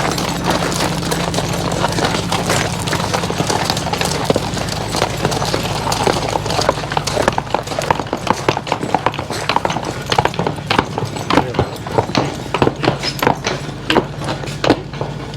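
Hooves of a team of draft horses clopping as they walk, the strikes coming thicker in the second half, over a steady low hum.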